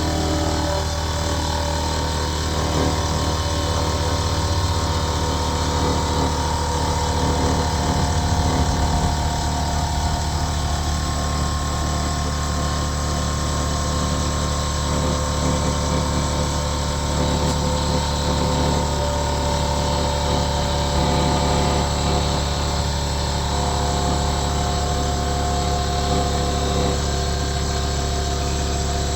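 Air compressor running steadily, a constant machine drone with a strong low hum.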